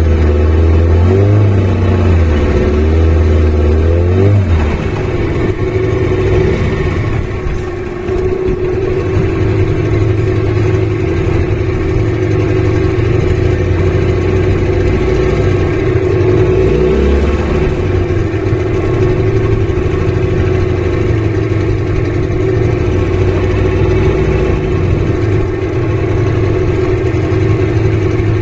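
Boat engine running steadily under way, its pitch shifting up and down a few times.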